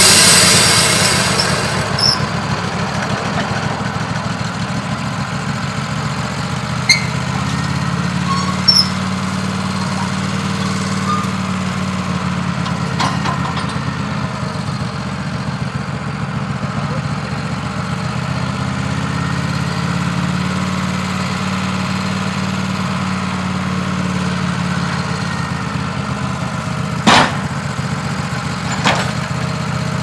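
Woodmizer LT15 Go sawmill: the band blade's cutting hiss dies away about a second in, and the mill's engine then idles steadily. A few sharp knocks come as hemlock slabs are lifted off the mill.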